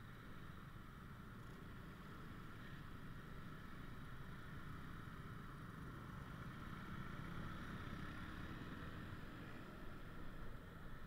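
Motorcycle traffic heard from among the pack: a steady low rumble of small motorbike engines mixed with road noise, getting a little louder in the second half.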